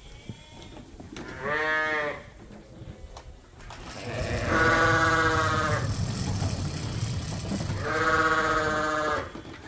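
Bottle lambs bleating at feeding time: three calls, a short one about a second and a half in, a longer one about four and a half seconds in, and another near the end.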